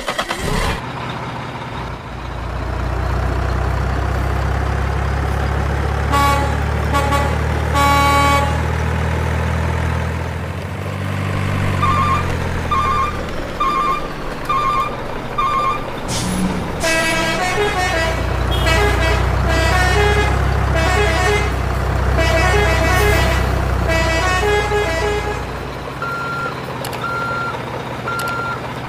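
Heavy truck sound effects: a diesel truck engine running with a low rumble that slows and dies away about a third of the way in and starts again in the second half, while horns sound over it. There are short horn toots, then a run of even beeps, then a long stretch of melodic multi-note horn calls, and evenly spaced reversing beeps near the end.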